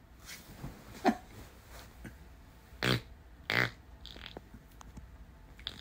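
A man straining to fart: a sharp click about a second in, then two short, loud puffs of breathy noise about two-thirds of a second apart near the middle.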